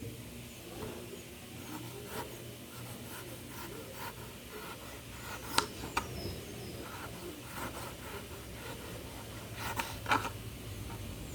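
Knife scraping and cutting the fibrous pulp off a peeled macaúba palm fruit: irregular scratchy scrapes with a few sharper knocks, the loudest about five and a half, six and ten seconds in.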